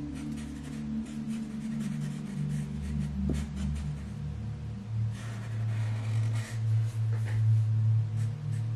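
Black permanent marker drawn across paper in short strokes, over background music of soft, held low tones.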